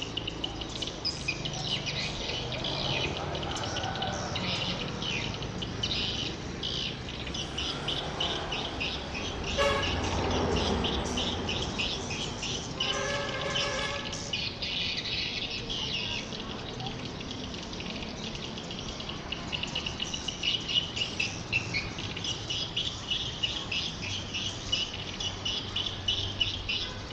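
Edible-nest swiftlets calling: a dense, continuous stream of rapid high chirps and twitters, with a louder rushing burst about ten seconds in.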